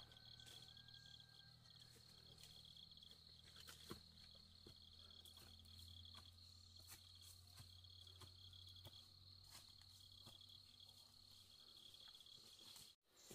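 Faint insects chirring steadily: one high continuous tone with a pulsing trill just below it. Underneath are a low hum that fades out near the end and a few soft clicks.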